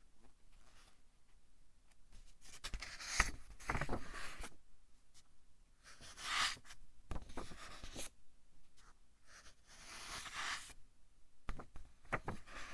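Pages of a thick-paper book being turned by hand, about four or five turns a couple of seconds apart, each a short papery rustle and flap.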